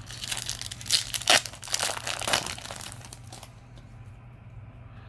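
Foil booster pack wrapper being torn open and crinkled by hand: a run of crackles that is loudest a little past a second in and stops about three and a half seconds in.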